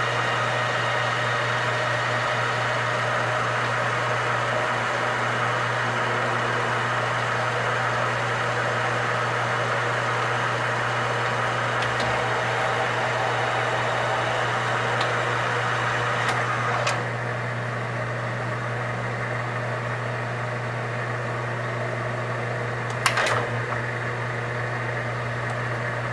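Metal lathe running under power feed while a single-point threading tool takes a light chasing pass along a thread: a steady mechanical hum with cutting and gear noise. The running noise drops with a click about 17 seconds in as the spindle stops, and a single sharp clack sounds about 23 seconds in.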